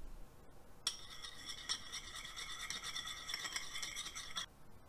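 Metal chopsticks stirring quickly in a small dipping bowl of sauce, a rapid scraping and clinking against the bowl with a faint ringing, starting about a second in and stopping shortly before the end.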